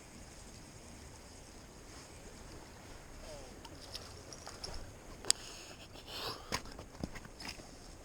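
Steady low rush of river water, with scattered sharp clicks and knocks from a few seconds in, the loudest a little past the middle.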